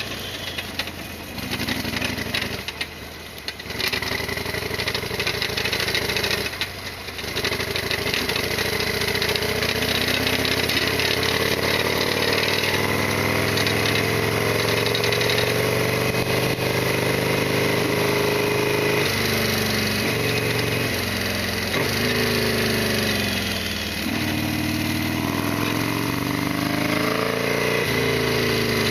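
Harley-Davidson Sportster XL1200R's 1200 cc air-cooled V-twin running under way. After about eight seconds its pitch climbs steadily as the bike accelerates, then falls back at each of four upshifts in the second half.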